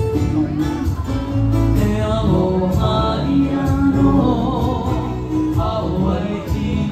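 Live Hawaiian hula music: singing to acoustic guitar and ukulele, playing steadily.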